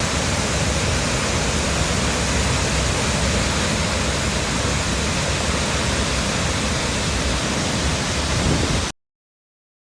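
Steady, loud rush of a waterfall's falling water, with a deep rumble underneath; it cuts off suddenly near the end.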